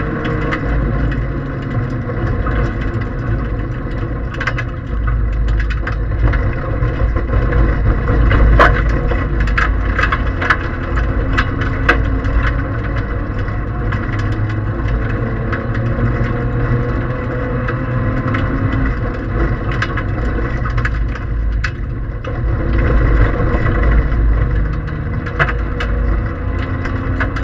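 Toyota Aygo 1.0 rally car heard from inside the cabin at speed on a gravel forest stage: its three-cylinder engine running hard, with loose gravel clicking and rattling against the underside.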